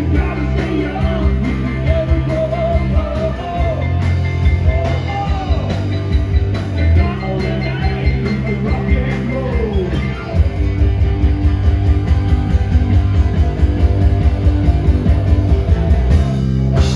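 Live rock band playing: electric guitar, bass and drums under a sung lead vocal. About ten seconds in, the singing mostly drops out and the drums carry on with fast, dense hits, with a brief break near the end.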